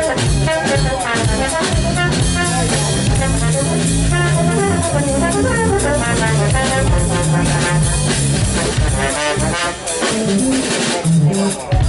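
Live jazz trio playing: trombone lines over a drum kit and a keytar, with a busy moving bass line low down. The trombone has dropped away by near the end.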